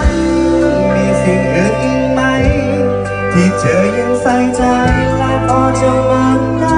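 A live band playing a song, with held bass notes that change every couple of seconds and a drum beat.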